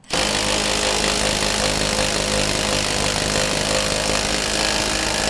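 Power drill starting suddenly and running at a steady speed, spinning a plusnut installer to set a plusnut (rivet nut) into van body sheet metal.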